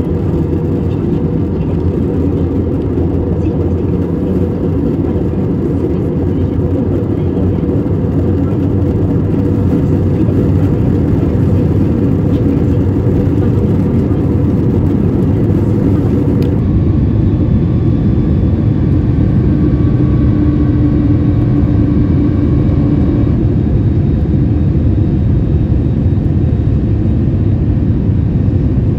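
Jet airliner cabin noise heard from a seat over the wing: a steady, loud rush of engines and airflow during the descent. The hiss at the top drops away suddenly about halfway through.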